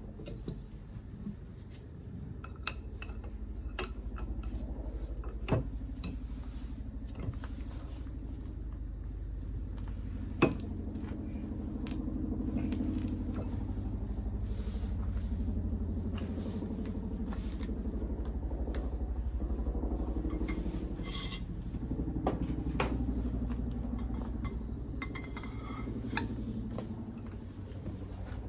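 Metal tools and engine parts clinking and knocking during hand disassembly of a scooter engine, with sharp clanks about five and ten seconds in over a steady low rumble.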